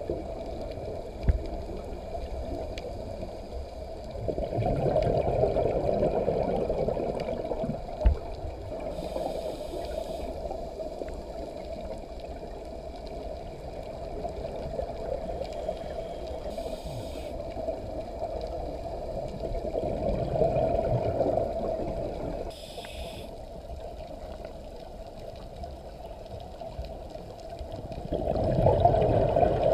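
Underwater sound of a scuba diver breathing through a regulator: gurgling rushes of exhaled bubbles a few times, with short hisses of inhalation between them. Two brief knocks come in the first few seconds.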